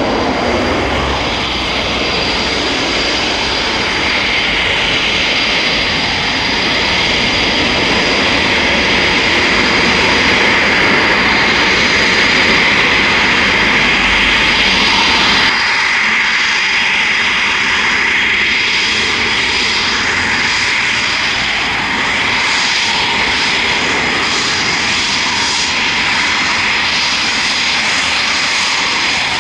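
Twin Eurojet EJ200 turbofans of Eurofighter Typhoons: first a pair of jets in flight with a steady jet rumble, then, after an abrupt change about halfway, engines running on the ground with less low rumble and a steady high whine.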